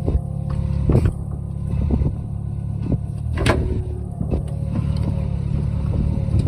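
Small crawler excavator's diesel engine running steadily while it works in deep mud, with a few sharp knocks, the loudest about three and a half seconds in.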